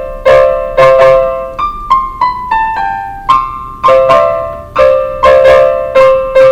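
Electronic keyboard in a piano voice playing a simple melody. Paired notes are struck about twice a second, each fading after the strike, with a short run of single notes stepping down in pitch in the middle.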